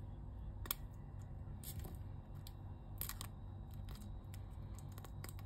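Scissors snipping through plastic wrap with resin stuck to it, trimming the edge of a silicone mold: a handful of short, sharp snips, about one a second, over a faint steady low hum.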